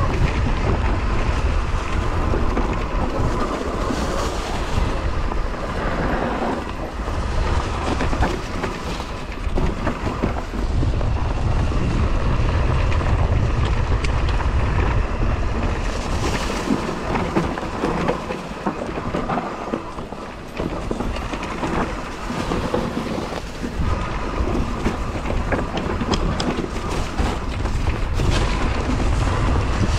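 Husqvarna electric mountain bike riding fast down a rough forest trail: tyres rumbling and the bike rattling and clattering over roots and stones, with wind buffeting the microphone.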